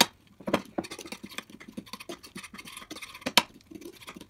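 A metal fork stirring thick mayonnaise-based tartar sauce on a plate: a rapid run of small clicks and scrapes as the tines knock and drag against the plate, with two sharper clicks, one at the very start and one a little over three seconds in.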